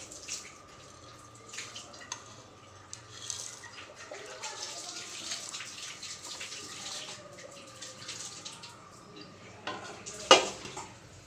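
Water running from a tap and splashing, with scattered small clicks, and a sharp loud knock of something hard near the end.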